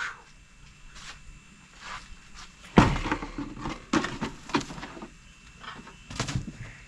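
A series of irregular scrapes, rustles and thumps from handling or moving about, the loudest about three seconds in.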